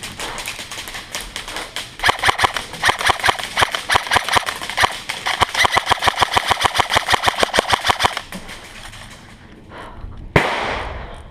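Airsoft guns firing on full auto: faint rapid shots at first, then a long steady run of shots at about eight a second. Near the end a single sharp bang with a hissing tail that dies away.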